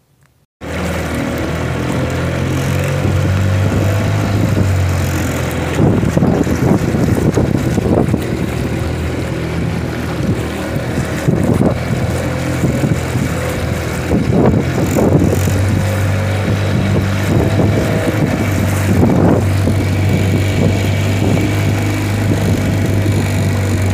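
Outboard motor of a small open boat running steadily at speed, with water splashing against the hull and several louder slaps. It cuts in suddenly just under a second in.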